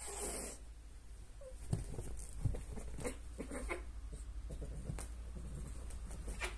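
Two cats play-wrestling on a fabric sofa: scuffling and rustling of the cover with scattered soft pats and thumps of paws.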